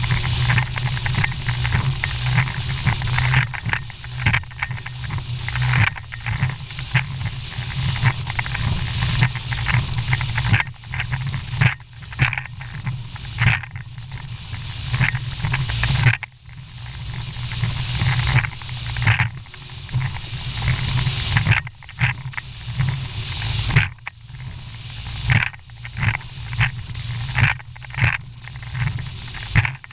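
Bass boat running fast through rough chop: the outboard's steady low drone under heavy wind buffeting on the microphone, broken by irregular hard jolts as the hull slams into the waves.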